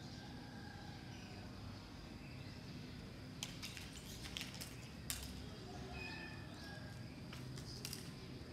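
Faint outdoor ambience with a steady low background noise, a few faint short chirps, and scattered brief clicks or scrapes in the middle and again near the end.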